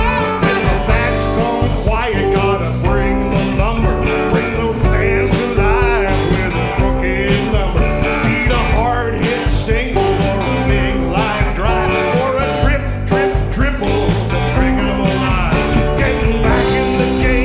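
Live country-rock band playing a song with a steady beat on electric guitars, bass, drums and keyboard, with a sung lead vocal.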